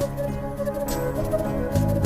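Instrumental background music with sustained pitched notes and a few percussive hits.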